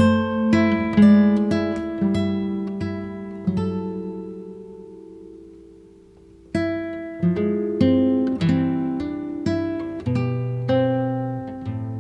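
Background music: an acoustic guitar playing plucked notes, each sharp at the start and fading away. Partway through there is a pause of a couple of seconds in which the last note fades out, and then the playing picks up again.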